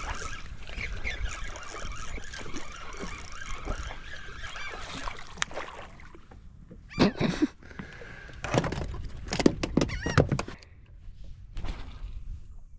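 Seagulls calling over and over, overlapping, while feeding over the water, with a few louder calls and sounds around the middle and later.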